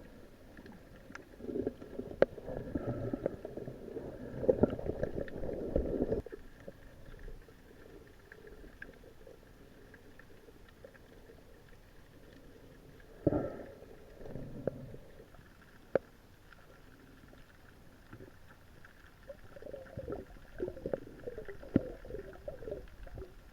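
Muffled underwater sound: bursts of gurgling, rumbling water movement, perhaps breath bubbles and the diver's motion, in three spells, with a few sharp clicks and a faint steady hum underneath.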